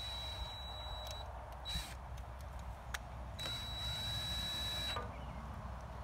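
Cordless drill/driver running in short bursts as it drives the terminal screws on a well pump pressure switch: a steady high motor whine that starts and stops sharply three times, the middle burst very brief.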